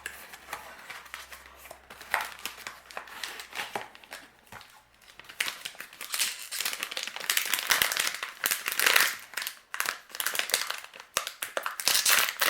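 Crinkling and rustling of a toy mystery box's cardboard and plastic packaging being opened and handled by hand, many small crackles, getting louder about halfway through.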